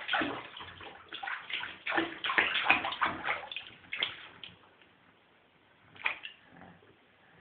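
Water sloshing and splashing in a plastic baby bath as a toddler moves his hands and a plastic toy through it. Busy for about the first four seconds, then quieter, with one more splash about six seconds in.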